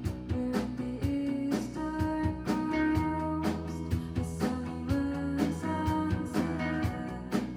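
Live band music with guitar, a bass line and drum hits keeping a steady beat.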